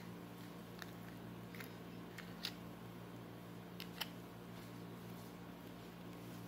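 Faint, scattered clicks and sticky pops of stringy slime being squeezed and pulled from a cupcake mold by hand, over a steady low hum.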